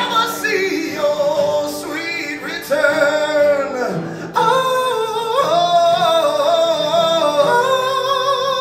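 A man singing with long held notes, accompanying himself on an acoustic guitar.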